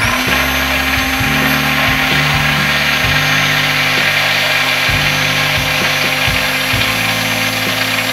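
Hand-held stick blender switching on and running steadily with its blade held still at the bottom of a tall cup, emulsifying egg and sunflower oil into aioli.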